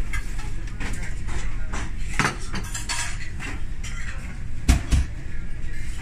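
Clatter of crockery and cutlery in a busy buffet restaurant: scattered clinks of plates and utensils over a steady low rumble, with a couple of sharper knocks near the end.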